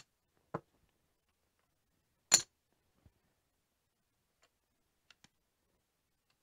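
Casino chips clicking against each other as they are set down on a craps table layout and stacked. A few sharp clicks come in the first seconds, the loudest about two and a half seconds in, then a few faint ticks.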